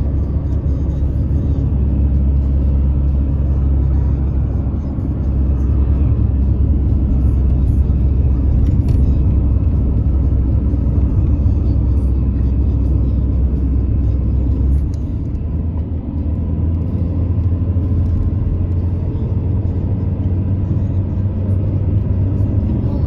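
Steady low rumble of a car driving on the open road, heard from inside the cabin: engine and tyre noise. The low drone shifts slightly about fifteen seconds in.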